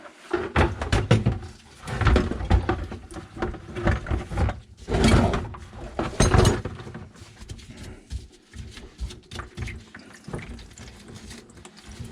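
PVC sink drain pipe and trap being taken apart by hand, the plastic parts clunking and knocking, with dirty water pouring out of the pipe into a bowl in two short gushes partway through.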